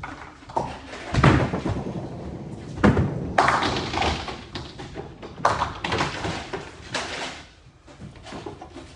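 Nine-pin bowling: heavy thuds of balls landing on the lanes, the loudest about one and three seconds in, followed by several bursts of pins clattering down.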